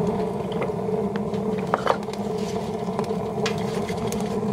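Wood stove converted into a rocket stove with a length of pipe, burning hard: a steady, resonant roar of the draft through the stove and pipe, with scattered sharp crackles and pops from the fire.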